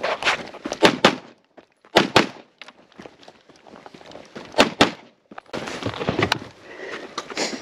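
Gunshots from a multigun competition firearm, fired mostly in quick pairs, about eight in all.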